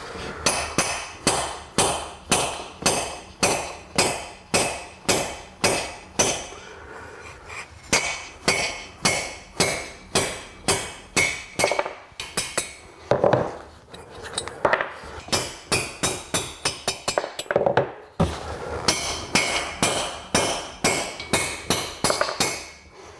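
Ball-pein hammer striking a steel drift to knock worn valve guides out of a heated aluminium cylinder head of a 1967 BSA A65 Thunderbolt. Sharp metal blows come about two a second, with a couple of short pauses.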